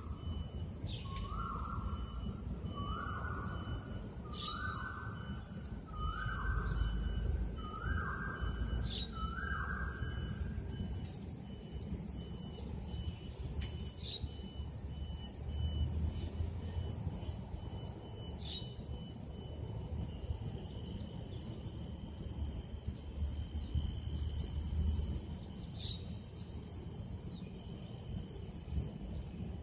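Forest birds calling: a series of six evenly spaced whistled notes, each slightly falling, in the first ten seconds, with short chirps and a fast repeated high note. Higher twittering follows later, over a low rumble of background noise.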